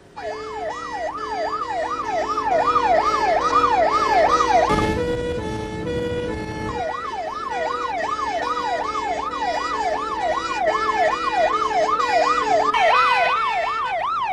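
Emergency vehicle sirens: a fast siren rising and falling about two to three times a second over a stepped two-tone siren. About five seconds in, the fast one drops out for a couple of seconds under a rush of noise, then resumes.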